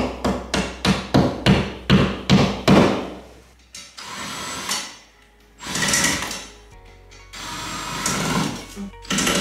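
A hammer striking in a quick even run, about a dozen blows at roughly three a second, then a Ryobi ONE+ 18V cordless drill/driver running in three short bursts.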